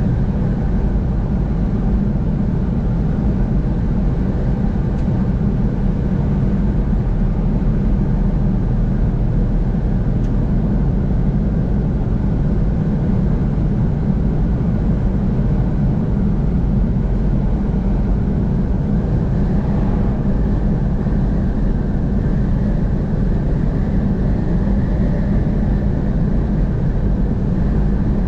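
Steady road and engine noise of a car driving along a highway at constant speed.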